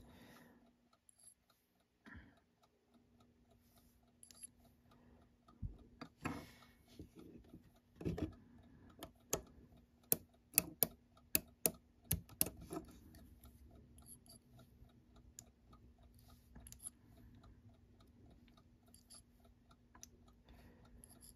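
Westclox Big Ben Style 7 alarm clock movement ticking faintly and steadily. From about a quarter of the way in to just past the middle, a run of sharper metallic clicks comes from the alarm escape wheel and hammer lever being worked and oiled by hand.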